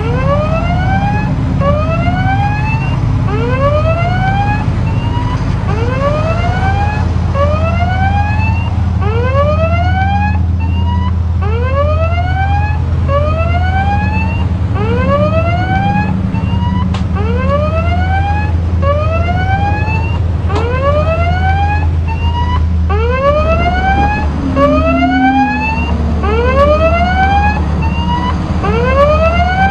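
A ship's electronic siren sounding a repeating whoop: rising sweeps about one a second, over a steady low drone of ship engines.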